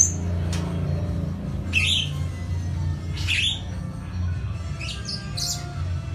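Jalak rio-rio starling calling in short, sharp, high chirps and squawks, about one a second, some sweeping down in pitch.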